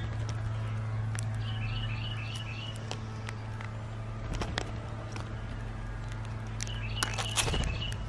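Birds at a seed feeder: two quick runs of short, repeated chirps, the second louder near the end, with scattered sharp clicks of beaks pecking seed in wooden trays, over a steady low hum.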